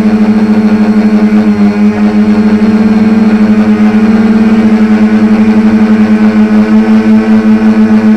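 Quadcopter drone's electric motors and propellers humming steadily at close range, with a fast pulsing beat as the motors run at slightly different speeds.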